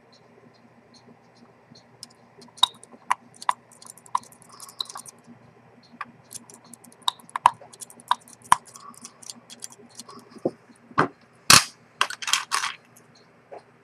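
Metal tweezers and a fine watchmaker's tool clicking and tapping against the movement of a vintage Rolex 6694 watch as it is worked on. The clicks are irregular and come more often as it goes on, with a louder cluster of clicks and scrapes near the end.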